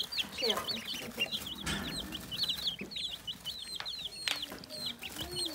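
Baby chicks and ducklings peeping nonstop, many short high peeps several a second, overlapping one another.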